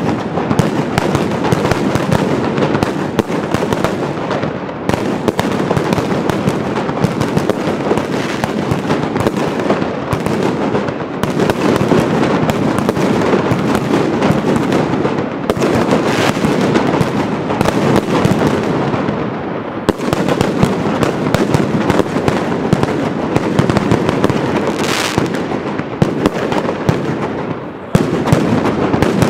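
Mascletà firecracker barrage: a loud, dense, unbroken rattle of detonations, briefly easing about twenty seconds in and again just before a louder stretch near the end, with a short hiss about 25 seconds in.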